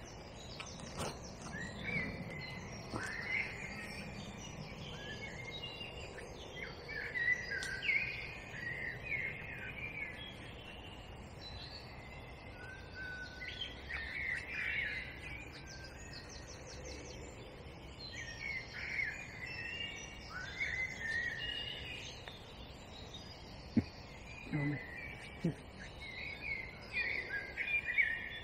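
Songbirds singing at dawn, many short warbling and gliding phrases overlapping through the whole stretch over a low outdoor background. About three quarters of the way through there is a sharp tap followed by a couple of low knocks.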